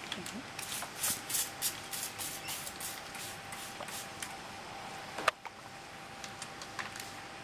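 Hand-held trigger spray bottle of ethanol squirted over and over onto a spill to disinfect it: a quick run of short hissing squirts for about three seconds, a single sharp click about five seconds in, then a few fainter squirts.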